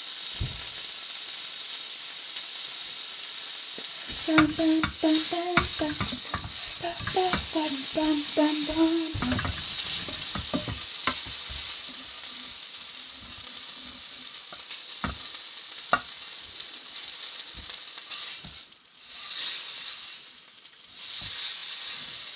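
Bacon sizzling steadily in a frying pan. From about four seconds in to about ten, a utensil clicks and scrapes against the pan as the pieces are moved, with a few single clicks after that.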